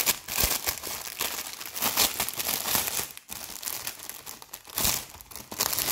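Clear plastic bag crinkling and rustling unevenly as hands pull it open and slide it off a stack of cards.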